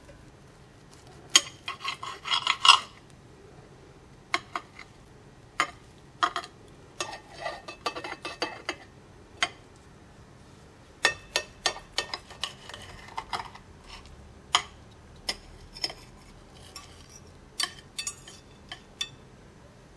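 A knife and fork clicking and scraping against a ceramic plate as a cheese-filled omelette is cut, in scattered light clinks with busier stretches near the start and about a third of the way in.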